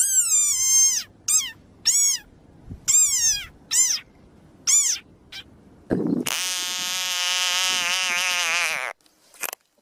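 Desert rain frog giving a series of about seven short, high squeaks, each rising then falling in pitch. About six seconds in, an African bullfrog held in the hand gives one long, loud call of about three seconds.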